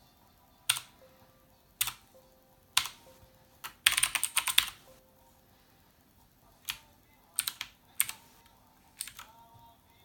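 Keys of a HyperX Alloy FPS mechanical keyboard being pressed: a few single clacks about a second apart, a quick flurry of keystrokes about four seconds in, then a pause and several more presses.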